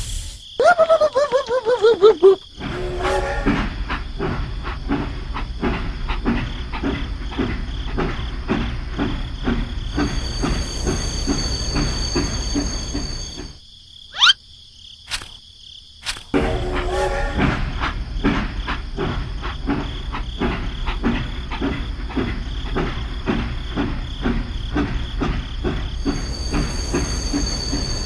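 Small tractor engine chugging in a fast, even rhythm. It stops for a few seconds about halfway through, where there is a brief rising whistle, then chugs on again.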